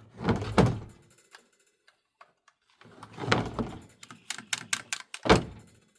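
Hands handling the Sachs-Dolmar 133 chainsaw after priming its carburetor, with plastic and metal clattering and a quick run of clicks and taps. A single sharp knock comes near the end. The engine is not running.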